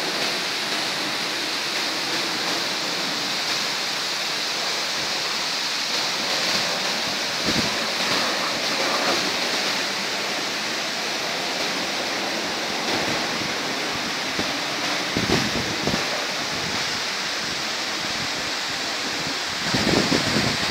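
Steady rushing outdoor noise of wind and water, with a few low gusts of wind buffeting the microphone, the strongest near the end.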